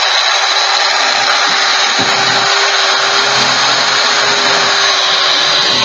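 Electric hammer drill, wired directly with its switch bypassed, running steadily and boring into a wooden block: a loud grinding rush with a steady motor whine.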